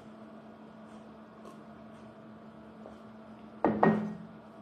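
Steady low hum over quiet room tone, then about three and a half seconds in a short, loud vocal sound from a person, lasting under half a second.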